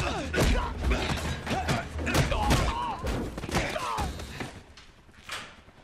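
Movie hand-to-hand fight sound effects: a rapid string of hits, thuds and crashes over a low droning film score, dying down about four seconds in.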